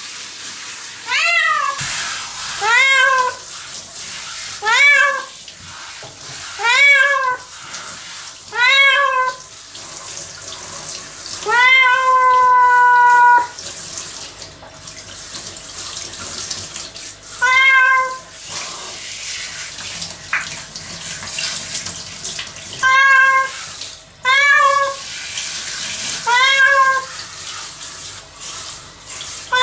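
A domestic cat being showered, meowing in protest: about ten drawn-out yowls, each rising then falling, every couple of seconds. One is held longer near the middle. Under it is the steady hiss of running shower water.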